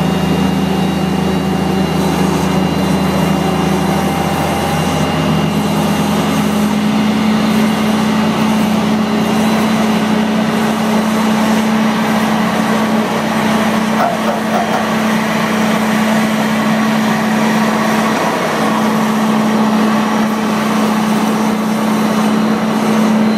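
Pushback tug's engine running steadily under load while towing an Airbus A340-300 by a towbar on its nose gear, its hum stepping up slightly in pitch about five seconds in. A steady rushing hiss runs underneath.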